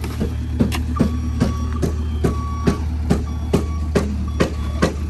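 Steel shovel striking and scraping the concrete pad as cement mortar is mixed by hand on the ground, a sharp knock a little over twice a second, over a steady low rumble.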